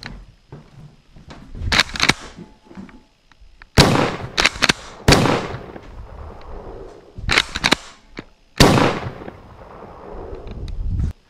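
Airsoft shotgun being racked and fired: short clusters of clicks from the pump action, and three loud shots, each with a short fading tail. A low handling rumble near the end.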